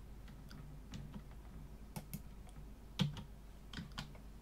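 A few faint, scattered clicks of a computer keyboard and mouse, the loudest about three seconds in, over a low steady hum.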